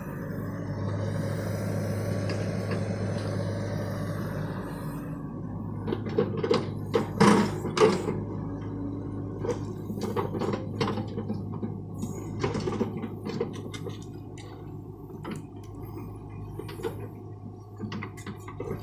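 John Deere excavator's engine running steadily, with a string of sharp metallic clanks and knocks starting about six seconds in, loudest a second or two later, as the machine works.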